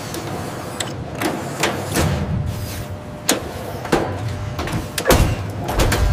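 Mechanical clunks and sharp clicks from a phone strength-testing press, about a dozen at irregular spacing, with heavier low thuds around two and five seconds in.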